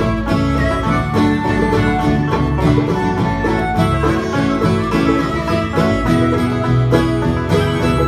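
Instrumental break of a folk song played live on two banjos and an acoustic guitar, bright plucked banjo notes over strummed guitar chords in a steady bluegrass-style rhythm.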